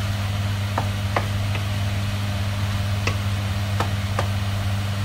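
Wooden spatula stirring chopped chicken in a nonstick frying pan, knocking sharply against the pan about six times at uneven intervals. A steady low hum runs underneath.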